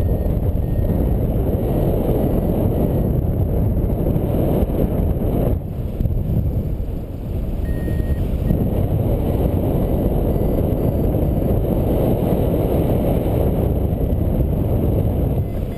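Wind buffeting the microphone of a paraglider pilot's camera in flight, a loud, steady rumble that eases briefly about a third of the way in. Faint short beeps at varying pitches sound through it, the variometer signalling the climb.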